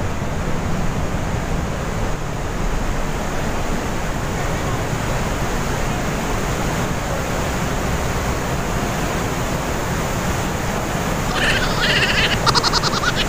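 Steady roar of the glacier-fed Trümmelbach waterfalls rushing through the rock gorge inside the mountain. A brief high-pitched sound rises above it near the end.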